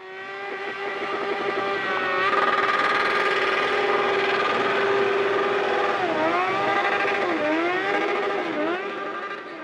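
Motorcycle-engine-like drone used as an intro sound effect: it fades in, holds a steady pitch, then dips and swings back up in pitch three or four times before fading out.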